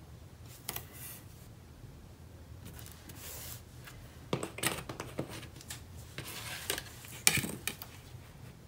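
Strips of 3/8-inch double-sided score tape being applied to cardstock by hand: rubbing and rustling of paper and tape, with a few sharp taps, the loudest late on.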